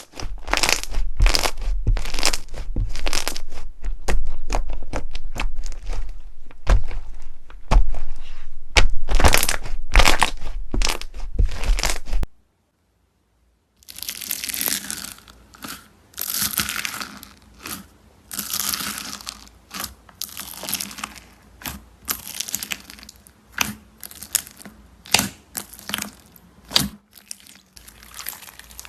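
Slime being handled and pressed: dense, rapid crackling and crunching pops, then, after a brief silent break about twelve seconds in, a quieter stretch of crackles and swishing.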